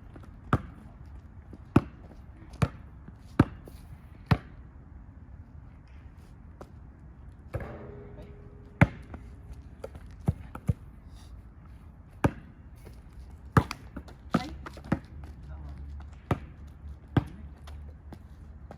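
Basketballs bouncing on a court: sharp single bounces, about one a second at first, then irregular and sparser.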